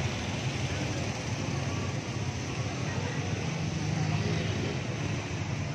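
Steady street traffic noise, a low even rumble of passing vehicles.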